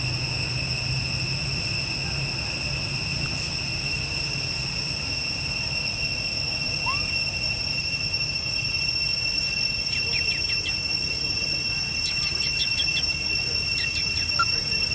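Steady high-pitched insect chorus, crickets or cicadas, holding an unbroken two-pitched drone over a low steady rumble, with a few quick chirps about two-thirds of the way through.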